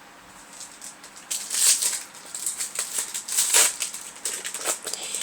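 Crinkling and rustling of a foil Yu-Gi-Oh! booster-pack wrapper and trading cards being handled, in irregular sharp crackles that start about a second in.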